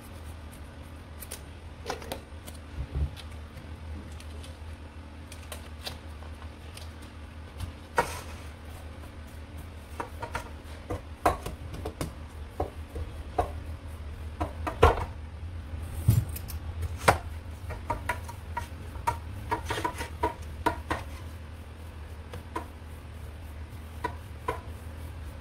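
Near the start, scissors snip open a plastic sachet. After that, hands rub margarine into flour in a stainless steel mixing bowl, giving scattered clicks and knocks as fingers and the bowl tap and scrape. A steady low hum runs underneath.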